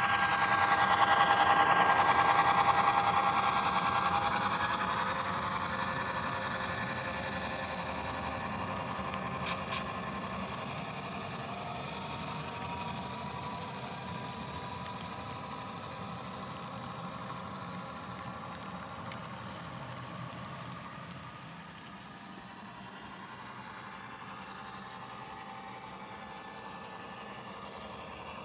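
HO scale model freight train running past on the layout's track: motor and wheels rolling on the rails, loudest in the first few seconds as it passes close, then fading as it runs away.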